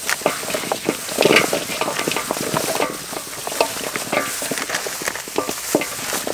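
Gloved hands mixing a large aluminium basin of raw chicken feet coated in white powder: a dense, continuous crackling and clicking of the feet and plastic gloves rubbing and knocking together and against the basin, louder about a second in.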